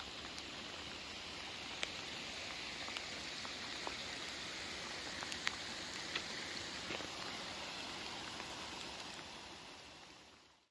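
Steady rain falling, with a few scattered louder drop taps, fading out near the end.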